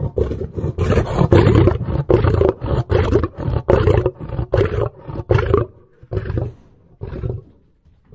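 Lion roaring: a run of short, deep grunting roars about two a second, loud for the first five seconds or so, then weaker and further apart as the bout fades out.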